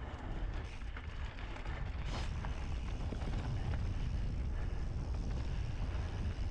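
Mountain bike riding down a dirt trail: wind buffeting the microphone over tyre noise and the bike rattling, with one sharp clack about two seconds in.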